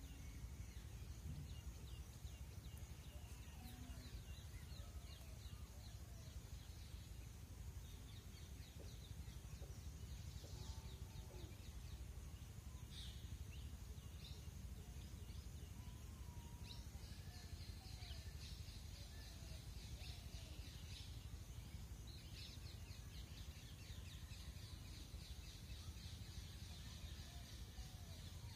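Faint outdoor ambience: scattered distant bird chirps over a steady low rumble, with high trilling runs in the second half.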